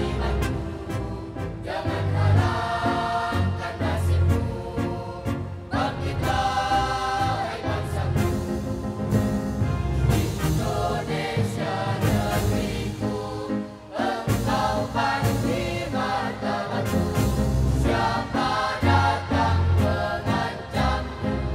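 Mixed student choir singing a patriotic song in Arabic in chorus over instrumental accompaniment with a bass line.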